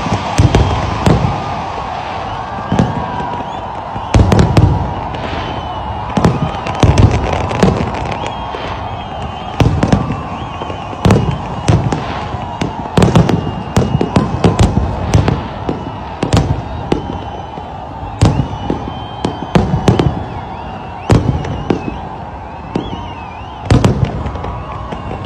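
Fireworks display: aerial shells bursting in quick, irregular succession, dozens of sharp bangs, some in rapid clusters, over a steady background din.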